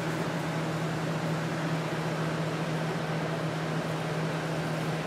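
Steady low machine hum with a constant hiss, like a ventilation fan running in the room; it does not change in pitch or level.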